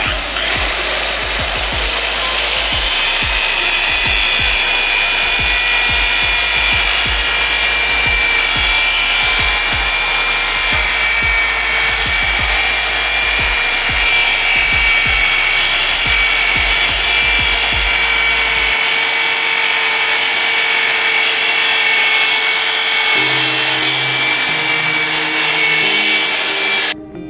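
Corded electric drill fitted with a small cutting disc, running steadily with a high whine while the disc grinds and cuts through a piece of dry coconut shell. It cuts off suddenly near the end.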